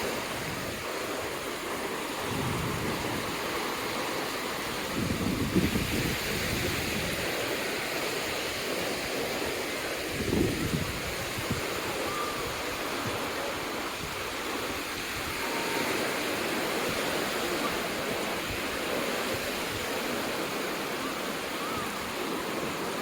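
Ocean surf washing steadily onto a beach, with two louder surges about five and ten seconds in.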